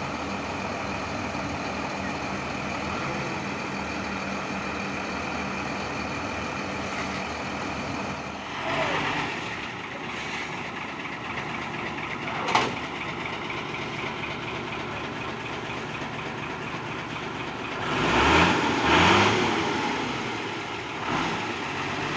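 Heavy diesel engine idling steadily. There is a brief louder swell about nine seconds in, a single sharp click midway, and a longer louder stretch with a shifting pitch near the end.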